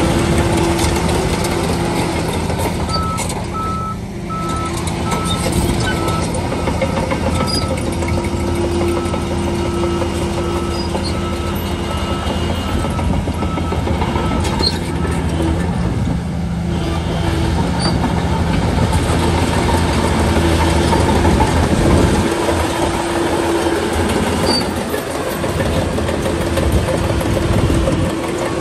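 Heavy bulldozer diesel engine running steadily under load. A reverse alarm beeps at an even pace for about twelve seconds, starting a few seconds in. Near the end the engine note swings down and back up.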